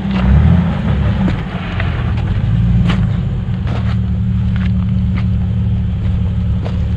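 Jeep Wrangler engine running low and steady as it crawls over rocks, with a few short knocks.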